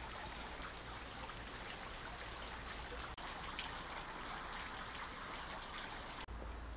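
A steady, even hiss of outdoor background noise, like trickling water, broken by two brief dropouts: one about three seconds in and one near the end, after which a low rumble comes up.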